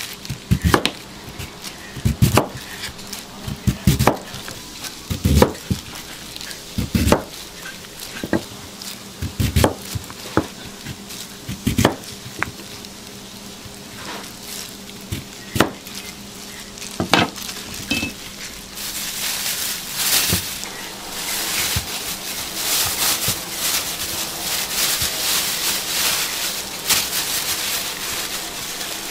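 Sharp knocks and clatters at irregular intervals, then a dense crackling sizzle that sets in about two-thirds of the way through and keeps going.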